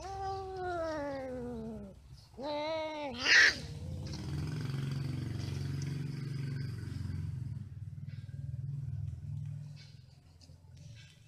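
Domestic cats mating: a long yowl falling in pitch, then a wavering yowl that breaks into a sharp shriek about three seconds in. This is the female's cry at the end of copulation as the tom dismounts. A low rumble follows for several seconds.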